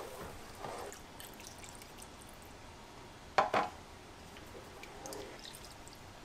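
A wooden spoon stirring a thick, milky roux sauce in a skillet as milk is slowly worked in, with faint wet stirring and dripping sounds. A sharp knock about three and a half seconds in.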